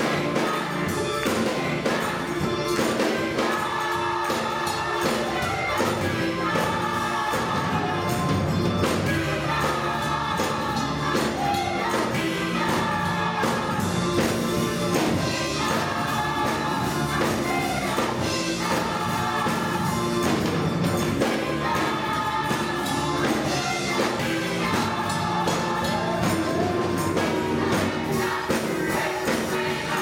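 Gospel choir singing full-voiced with keyboard accompaniment over a steady percussive beat.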